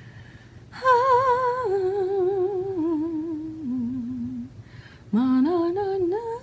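A woman humming a slow tune with a wavering vibrato, in two phrases that each step down in pitch, with a short breath between them about four and a half seconds in.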